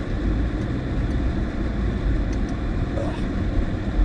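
Steady road and engine noise inside a small car's cabin while it is driving, with a couple of faint ticks about halfway through.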